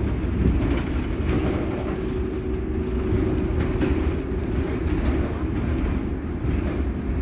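Irizar ie tram electric bus standing at the stop, giving a steady low rumble. A faint steady hum comes in about a second in and fades out a little past the middle.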